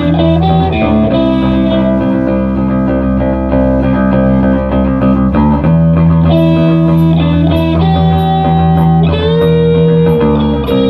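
Music played on an electric guitar: held notes that slide from one pitch to the next over a steady low bass note.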